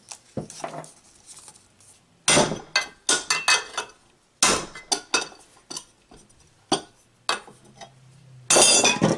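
A hammer striking a flat chisel wedged into the seam between an electric motor's end bell and its frame: about a dozen sharp, ringing metal-on-metal strikes in irregular groups, with a longer scraping, rattling stretch near the end. The end bell is being driven off the motor housing.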